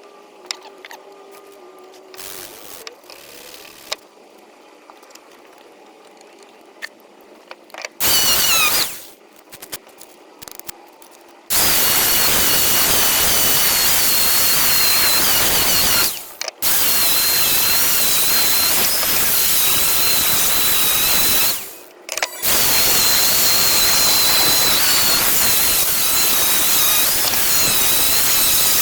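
A power tool running in long stretches, a high wavering whine over a loud hiss. It starts with a short burst, then runs on, stopping briefly twice. Before it starts there are only faint clicks and handling sounds.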